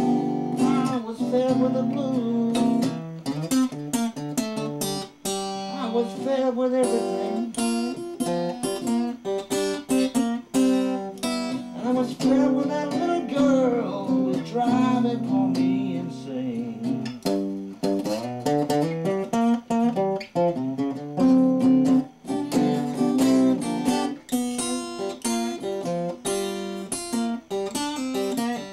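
Steel-string acoustic guitar played solo, fingerpicked lines of single notes over low bass notes left ringing, with a few notes bent up and down about halfway through.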